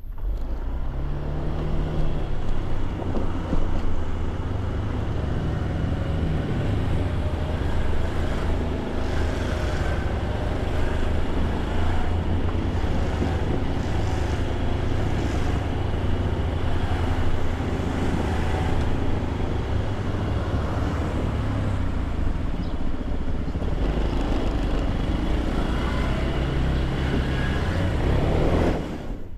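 Vehicle engine running under way, with steady road and wind noise; its pitch rises and falls a few times as it speeds up and slows down.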